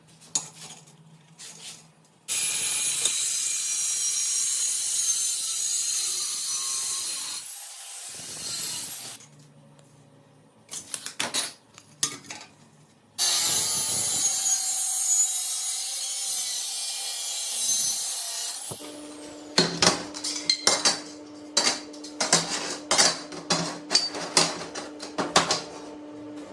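Workshop power-tool work: a power tool runs hard in two long stretches of hissing noise, each winding down at its end. Then a steady motor hum sets in, with a rapid series of sharp knocks and rattles.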